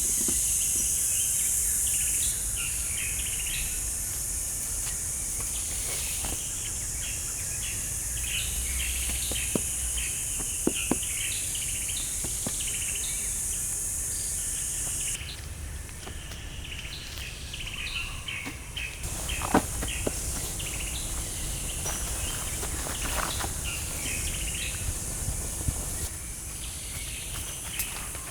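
Woodland ambience: a steady high insect drone with many short bird chirps over it. The insect drone cuts off abruptly about halfway through and comes back a few seconds later, and a few sharp knocks sound now and then, the loudest near two-thirds of the way in.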